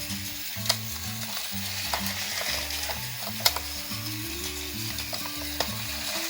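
Plarail battery-powered toy train running on plastic track: a steady whirring rattle with a few sharp clicks, under quiet background music.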